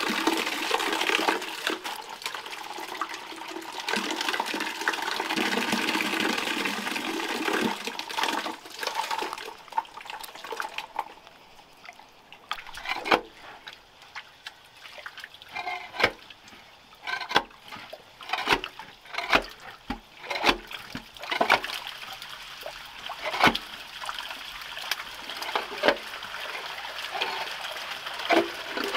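Water pouring steadily through a pond's drain opening as its clay plug is pulled out. After about eight seconds the rush gives way to scattered splashes and knocks of someone working in shallow water inside a concrete drain pit.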